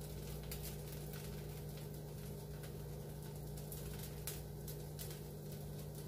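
Dosa batter cooking quietly on a hot pan, with faint scattered crackles over a steady low hum.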